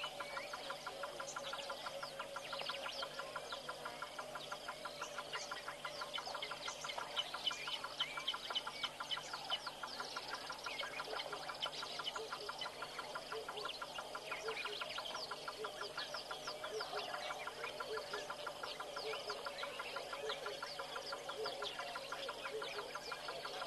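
Dense outdoor chorus of many birds chirping and calling over a steady, fast pulsing trill that runs without a break.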